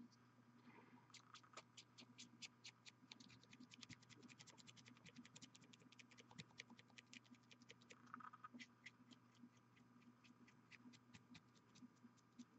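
Faint, rapid light scratches, several a second, of a fine paintbrush's bristles stroked over a painted miniature's cloak, over a faint low hum.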